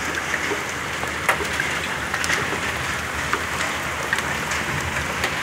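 Heavy downpour of rain with hail: a steady hiss broken by scattered sharp ticks of hailstones striking.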